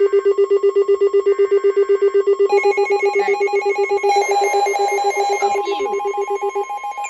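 Emergency alert tones: a rapidly pulsing electronic alarm beep, twice overlaid by short bursts of warbling EAS header data tones, then joined about halfway through by further steady alert tones as the next warning is triggered.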